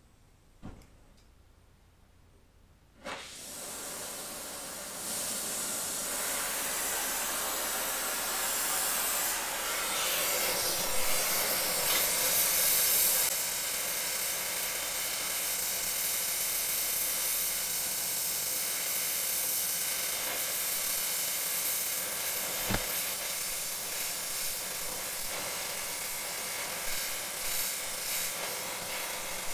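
Gas torch flame hissing steadily as it heats the steel around a seized broken bolt, to expand the metal and free the bolt. The hiss starts about three seconds in and grows louder a couple of seconds later.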